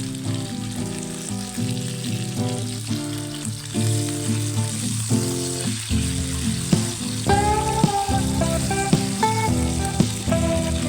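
Instrumental background music with a melody of short notes, over the steady hiss of food sizzling in a frying pan.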